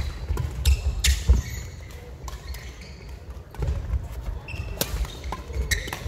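Badminton rally: several sharp cracks of rackets striking the shuttlecock, with shoes squeaking and feet thudding on the wooden court floor of a large sports hall.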